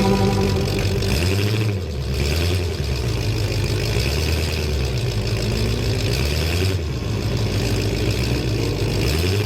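Demolition derby car engines running, revving up several times.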